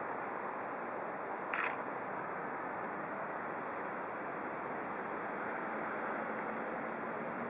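Steady rushing outdoor background noise, with one short sharp click about one and a half seconds in.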